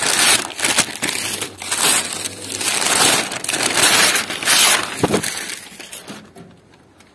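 Newspaper masking being torn off and crumpled after spray painting, in irregular rustling, crackling bursts that fade out over the last second or so.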